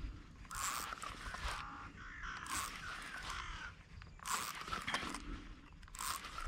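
A bird calling several times, harsh rasping calls a second or two apart.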